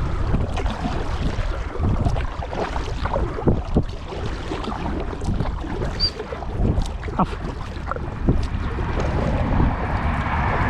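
Wind rumbling steadily on the microphone while a kayak is paddled, with irregular small splashes and knocks from the paddle and hull.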